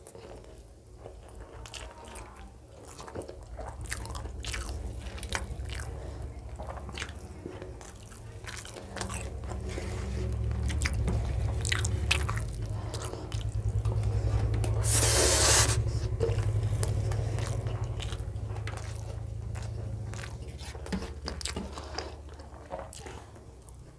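Close-miked eating: a person chewing and biting through mouthfuls of rice, dal and fried vegetables, with many short wet clicks and smacks over a low rumble. One brief loud rush of noise comes about fifteen seconds in.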